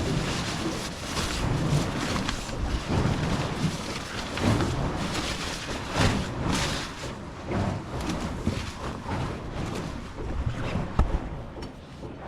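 Rustling and handling noise, with irregular clicks and knocks, as camping gear such as a lantern is handled and fitted inside a tent.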